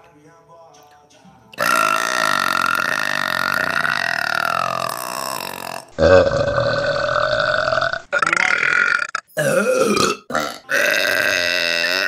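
A series of about six loud, voiced burps from young women. The first, starting about a second and a half in, is one long burp of about four seconds whose pitch slides down near its end, followed by shorter burps in quick succession.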